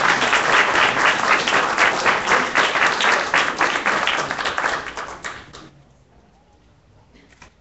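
Audience applauding, a dense patter of many hands clapping that dies away about five and a half seconds in.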